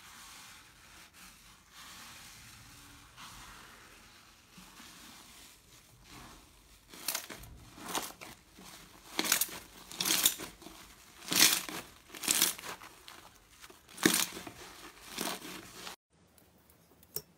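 Foamy slime in a tub crackling and tearing as a hand presses into it and pulls it up: a fine crackle at first, then a series of louder crackling bursts about once a second.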